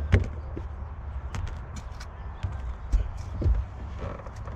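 Hands working loose plastic trunk trim: scattered clicks and knocks as a panel is pulled up and moved, over a low handling rumble.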